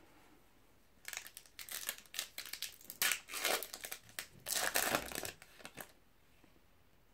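Foil-lined wrapper of a trading-card booster pack being torn open and crinkled by hand: a run of crackling tears starting about a second in and stopping about a second before the end.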